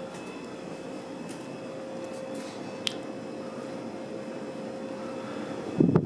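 1989 Hunter Original cast-iron ceiling fan running on high with no oil in its oil bath, a steady airy whir with a steady hum from a mini fridge behind it. A single short click comes about three seconds in, and a brief knocking near the end.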